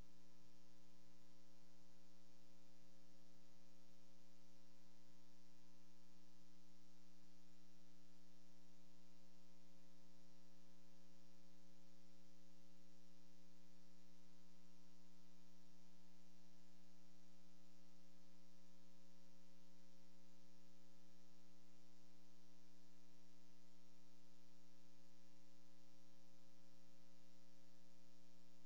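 Steady electrical mains hum in the audio feed: a constant low buzz made of several fixed tones, with a faint hiss above it and nothing else.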